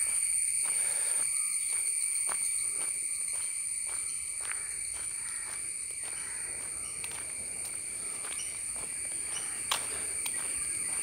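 Steady high-pitched insect chorus at several pitches, with soft, regular footsteps of someone walking. A single sharp click comes near the end.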